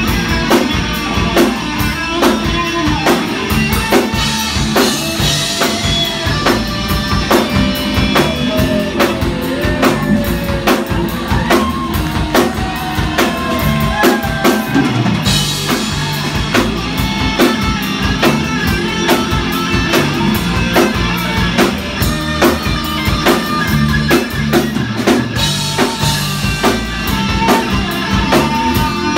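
Live rock band playing: an electric guitar plays bending lead lines over a steady drum-kit beat, with cymbal crashes a few times.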